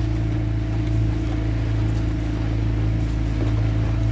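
Motorboat engine running steadily at low speed, a constant low drone.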